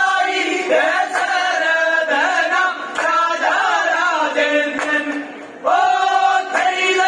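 Group of men singing a vanchipattu, the Kerala boat song, in unison through microphones, with long held notes that bend in pitch. The voices drop away briefly about five and a half seconds in, then the whole group comes back in together.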